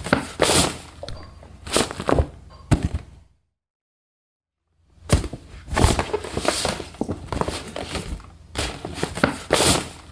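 Cartoon footsteps sound effect: a series of comic, thudding steps, irregularly spaced at roughly one or two a second, with about a second and a half of complete silence a third of the way in.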